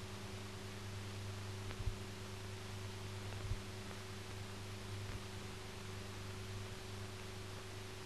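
Faint steady hum and hiss of an old film soundtrack, with two faint clicks about two and three and a half seconds in; no sound of the procession itself is heard.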